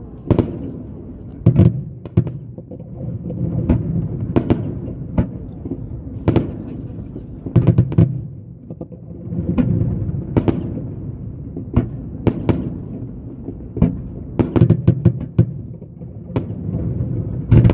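Aerial firework shells bursting: about twenty sharp bangs at irregular intervals, some in quick clusters, over a steady low rumble.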